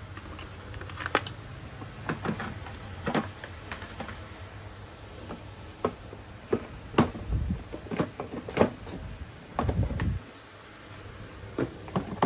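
Irregular clicks, taps and a few dull thumps of cordless screwdrivers, batteries and their plastic carrying cases being handled and set down.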